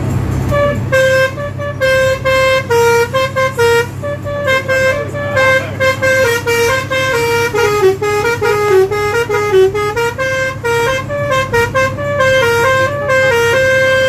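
Telolet basuri bus horn playing a long tune of quick stepped notes, with the pitch dipping lower in the middle of the phrase, over the steady low drone of the bus engine running.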